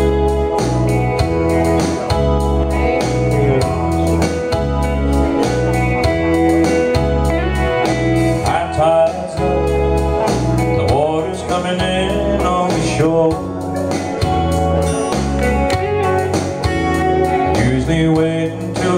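Instrumental intro of a country song with a cha-cha beat: acoustic guitar over a steady, rhythmic bass line, with some sliding guitar lines.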